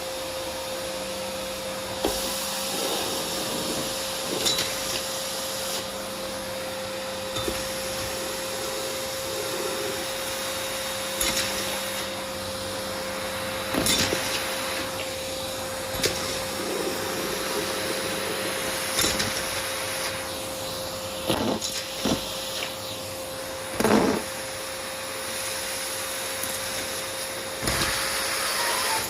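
Vacuum cleaner running with a steady hum, its nozzle worked over a dirty floor and upholstery. Irregular sharp clatters and crunches come as bits of debris rattle up the nozzle, the loudest about two-thirds of the way in.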